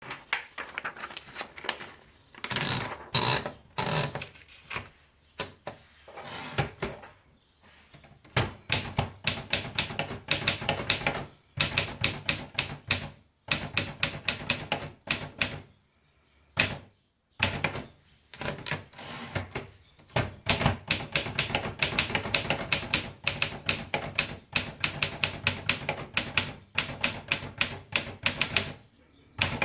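Continental 350 typewriter being typed on: quick runs of sharp key strikes, several a second, broken by short pauses.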